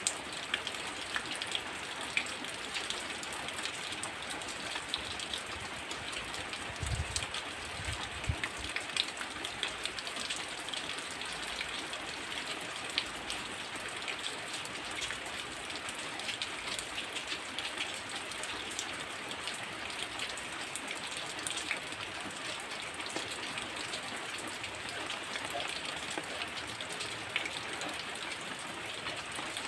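Heavy rain falling steadily, with many sharp drip ticks through the hiss. A couple of brief low thuds come about seven to eight seconds in.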